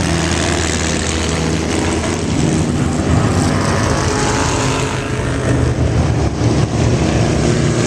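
Engines of vintage race cars running loudly and steadily as they lap the track, among them the 4-cam Ford of the Foyt Ford champ car.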